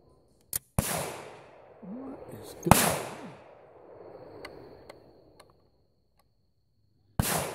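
Gunshots: a sharp crack about a second in and a louder one near the three-second mark, each trailing off in echo, then a few faint clicks and another loud bang near the end.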